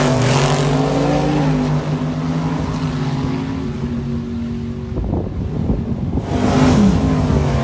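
Two drag cars launching side by side at full throttle, one of them pulling a wheelstand, their engines fading as they run away down the strip. Engine noise swells again near the end.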